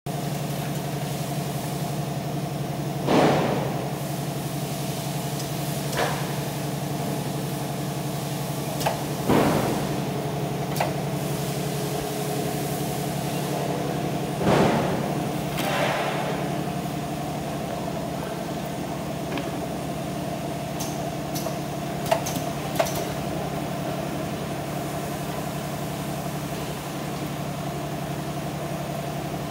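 FG-2B-102 two-head auger powder filling machine and its conveyor running with a steady hum. Over it come a few short rushing sounds and several sharp clicks.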